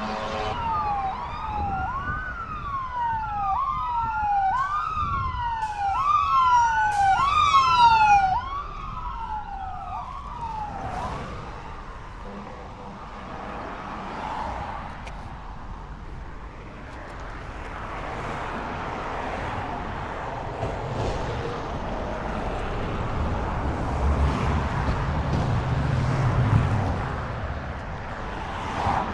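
Emergency vehicle siren going by, cycling quickly up and down in pitch about once a second. It grows louder until about eight seconds in, then fades out by about eleven seconds. Steady street noise follows, with a low rumble near the end.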